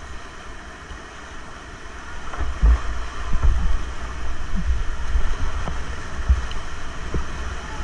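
Whitewater rapids rushing around a kayak. About two seconds in it grows louder, with repeated low buffeting thumps from water and wind striking the microphone as the boat drops through the rapid.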